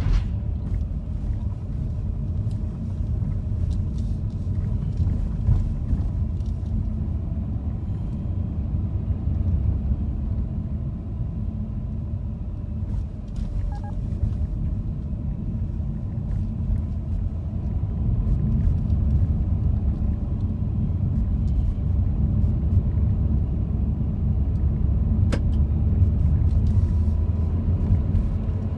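Steady low rumble of a car being driven: engine and tyre noise, with a few faint knocks and a single sharp click near the end.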